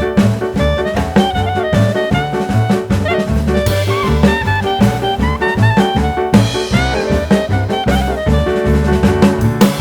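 Background music: an upbeat jazzy instrumental with drums and horn-like melody over a steady beat.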